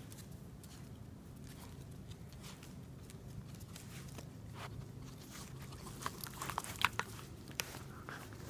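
Two Norfolk Terriers play-wrestling: soft scuffling with scattered sharp clicks of snapping jaws and claws on a tile floor, and a quick flurry of louder snaps and clicks in the last few seconds.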